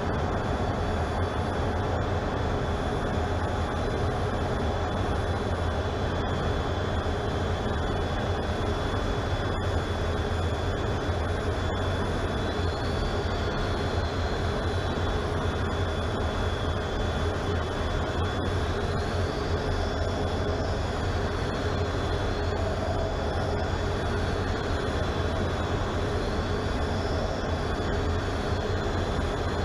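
Jet engine noise heard inside a fighter jet's cockpit in flight: a steady, even rumble with a deep hum. From about halfway through, a thin high whine wavers up and down in pitch.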